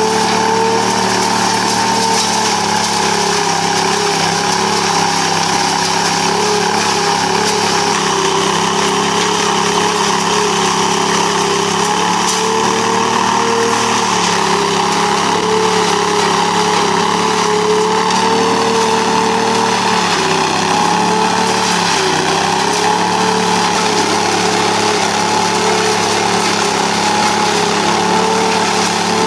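Truck-mounted leaf vacuum loader running steadily, its engine and impeller fan giving a constant hum with a slightly wavering whine over the rushing hiss of air and leaves drawn through the large suction hose.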